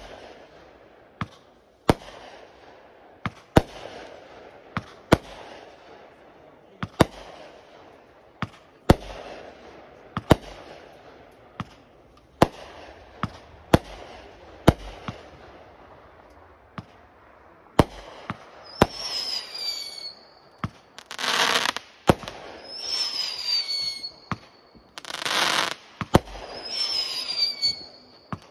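Aerial fireworks going off in a steady sequence: sharp bangs of bursting shots about once a second, each with a short echo. In the last ten seconds whistling shots take over, with falling whistles and loud hissing bursts.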